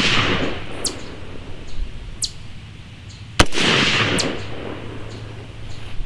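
JP15 AR-15 rifle firing single 55-grain .223 rounds during sighting-in: the echo of one shot fades at the start, and one sharp shot cracks about three and a half seconds in, its echo rolling away over about a second.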